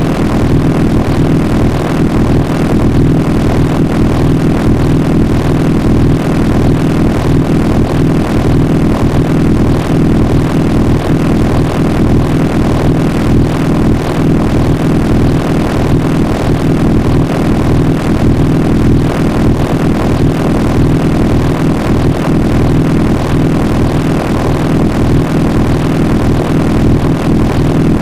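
Digitally processed audio clip put through a 20 Hz vibrato, a slight downward pitch shift and a robotic ring-modulation ('alien robot') effect. It makes a loud, steady, warbling buzz with a fast, regular pulsing, heaviest in the low range.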